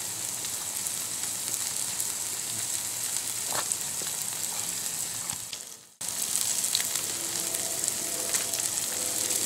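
Sliced onions and green peppers frying in oil in a cast-iron skillet, a steady sizzling hiss. The sizzle fades and drops out briefly just before six seconds in, then resumes.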